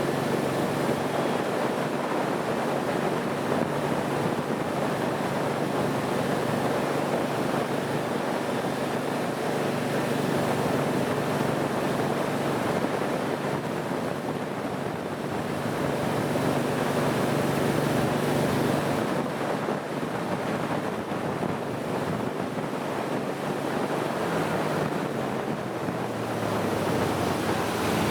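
Motorboat engine running steadily under way, with water rushing past the hull and wind buffeting the microphone; the engine note drops a little near the end as it eases off.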